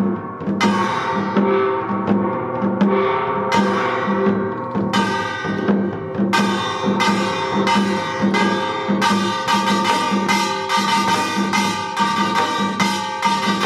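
Samul nori percussion: a small Korean gong struck over and over with a ringing metallic tone over a steady drum beat of about two strokes a second. The gong strokes speed up, growing quicker about six seconds in and denser again near nine seconds.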